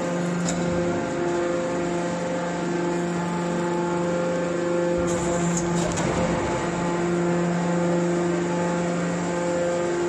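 Hydraulic power unit of an automatic scrap-metal baler running, a steady hum, with a short hiss about five seconds in.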